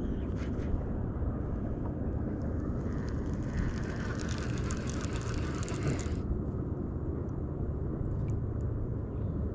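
Steady low rumble of wind on the microphone. About three seconds in, a hissing noise starts, lasts about three seconds and cuts off sharply.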